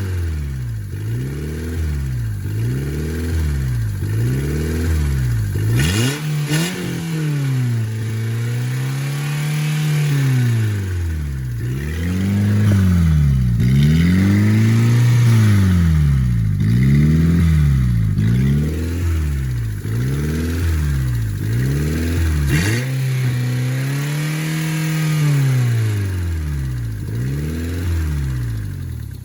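A 2001 Honda Civic's four-cylinder engine being revved over and over, the revs climbing and dropping every second or two and at times held high for a couple of seconds. It cuts off suddenly at the end.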